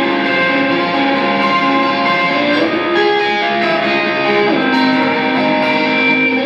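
Electric guitar played through an amplifier for a soundcheck: sustained ringing chords that change a few times.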